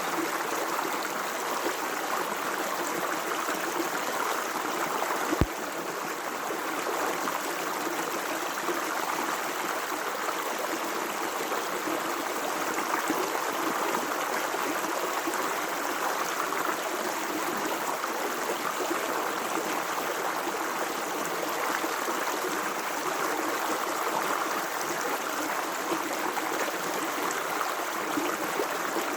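Natural running water, a steady rushing flow recorded live, with one sharp click about five seconds in.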